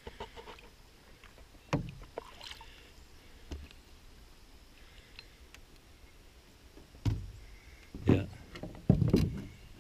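Canoe being paddled and edged in: several dull knocks and splashes against the hull, a few spread out early, then a cluster of louder ones in the last three seconds, with quiet water in between.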